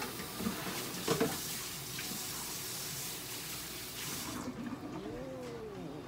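Water running from a tap into a sink, a steady hiss that cuts off abruptly about four seconds in. There is a sharp knock about a second in.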